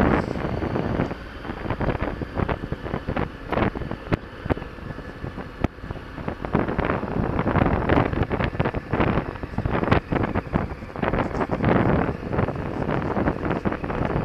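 Big KTM adventure motorcycle running at low trail speed over a rough dirt track, with wind buffeting the microphone and frequent knocks and rattles as the bike jolts over ruts and rocks.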